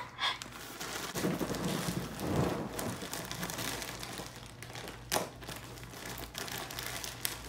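Plastic mailer package crinkling and rustling as it is handled, with a sharp tap about five seconds in.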